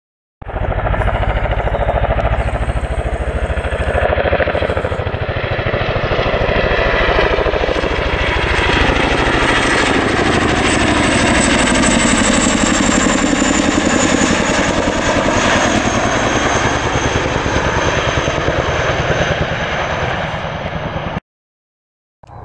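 Boeing CH-47 Chinook tandem-rotor helicopter flying low overhead: a fast, steady rotor thump under a turbine whine. The sound is loudest in the middle, and its tones sweep as the helicopter passes. It cuts off about a second before the end.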